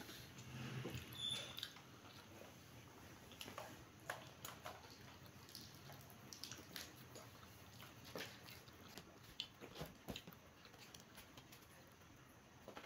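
Faint chewing and small mouth sounds of two people eating pizza slices, with light clicks and taps scattered throughout.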